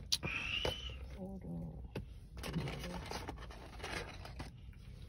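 Styrofoam clamshell takeout box being handled and opened, scraping and creaking, with one short squeak near the start, while a plastic bag rustles and fried chicken fingers are picked out of the box.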